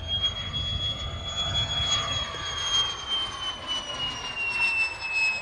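Electric ducted fan (impeller) of a Schreiner F-18 model jet in flight, a steady high whine whose pitch sinks slightly near the end.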